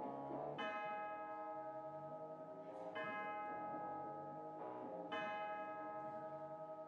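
Background music of bell-like struck tones: three chords sounded about two and a half seconds apart, each left to ring and slowly die away.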